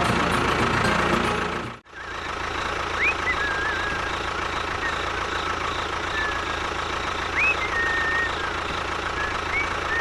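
Small motor running steadily with a rattling drone. It cuts out briefly about two seconds in, then runs on, with a few short high chirps over it.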